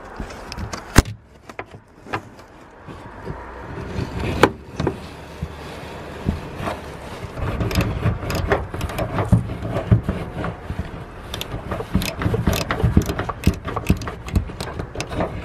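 Socket wrench clicking in irregular runs as it works the shark-fin antenna's mounting nut loose from inside the roof, over rustling and knocking from a hand working above the pulled-down headliner. A single sharp click about a second in is the loudest sound; the clicking gets much busier in the second half.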